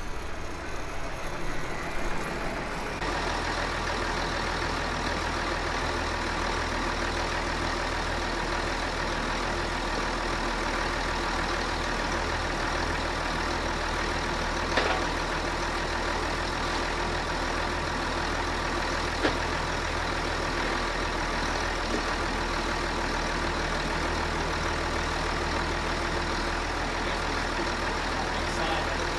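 An engine idling steadily, with two brief knocks about halfway through.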